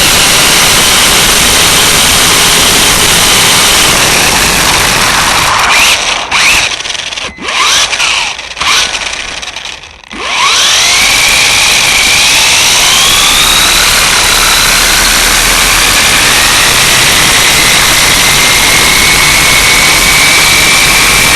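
WL Toys A969-B RC truck's electric motor and drivetrain whining at speed over a loud rush of road and wind noise, heard from a microphone riding on the truck. Midway the sound cuts out several times as the throttle comes off. It then climbs steeply in pitch as the truck accelerates and settles into a steady high whine.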